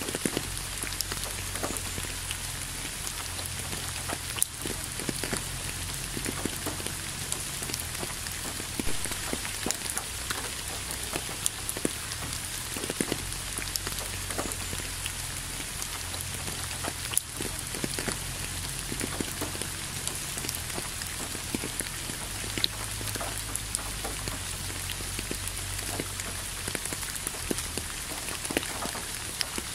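Steady rain falling, an even hiss with frequent sharp taps of single drops landing close by, over a low rumble.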